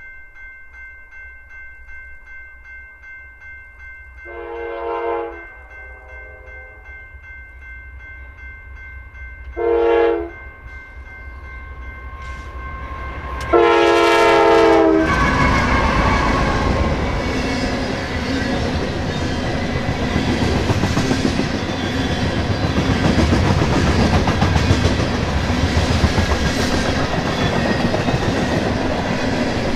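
Diesel freight locomotive's air horn blowing the grade-crossing signal, long, long, short, long, the last blast the loudest, then the train rolling past close by with steady wheel clatter on the rails.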